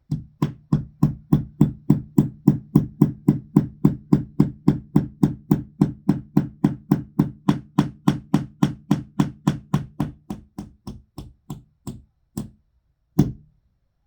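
A hammer driving a nail into a wall with a fast, even run of blows, about three to four a second, that weaken and thin out near the end. Two separate final blows follow, and the nail goes in easily.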